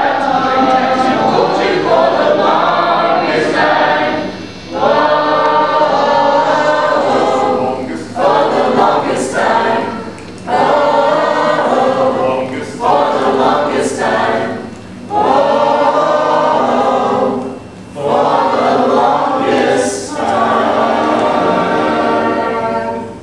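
Small mixed choir of men and women singing a cappella, in phrases of a few seconds separated by short breaks for breath.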